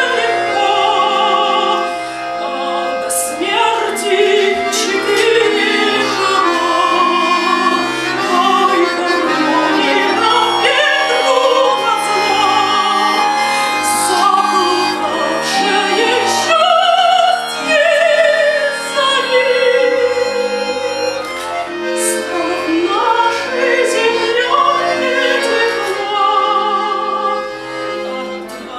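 A woman sings a song in a trained, operatic style with wavering vibrato, accompanied by sustained chords on a button accordion.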